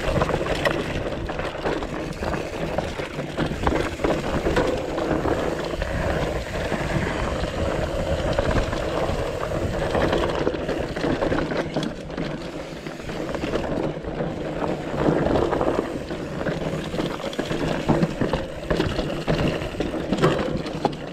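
Mountain bike riding over a rocky trail: a steady rolling rumble with frequent knocks and rattles as the tyres hit rocks.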